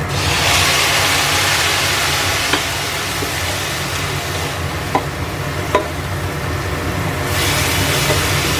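A little water poured into a hot stainless steel frying pan of long beans, tempe and anchovies hits the oil and hisses loudly, then goes on sizzling as the food is stirred with a wooden spatula, which knocks against the pan a few times. A steady low hum runs underneath.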